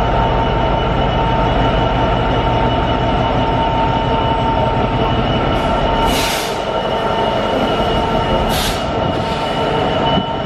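Class 66 diesel-electric freight locomotive passing with a train, its two-stroke V12 engine running steadily under a continuous rumble of wheels on rail. Two short hisses come about six and eight and a half seconds in.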